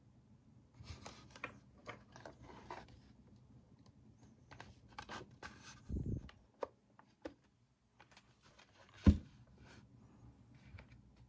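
Plastic housing parts of a Bodum electric coffee grinder handled and fitted together: scattered rubbing, scraping and small clicks, with a dull knock about six seconds in and a sharper, louder knock about nine seconds in.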